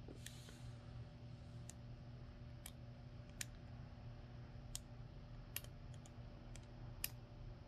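Faint, irregular metallic clicks, about eight to ten of them, from a hook pick working the pin stack of a brass euro cylinder lock under tension. The lock holds a serrated spool pin, which gives small clicks as it is lifted.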